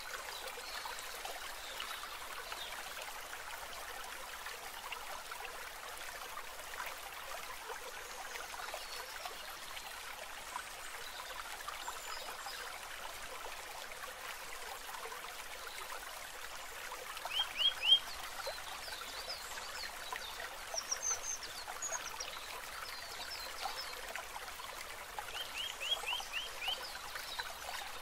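Steady trickling of running water, like a small stream, with short runs of quick high chirps from a small animal, about four or five chirps at a time, twice in the latter half.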